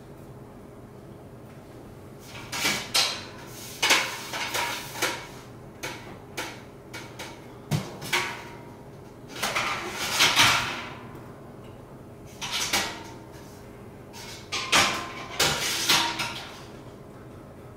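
Stainless steel parts of an Anvil Foundry electric brewing kettle knocking and scraping against each other as the upper section is lifted and handled, in six or so clusters of clanks and scrapes that start a few seconds in and stop near the end.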